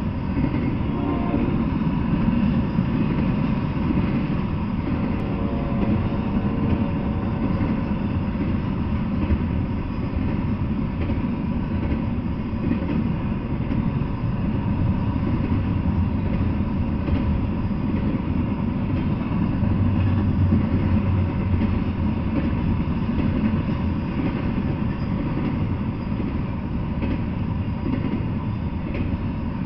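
A double-stack intermodal freight train's loaded well cars rolling steadily past, with the steady noise of steel wheels running on the rails.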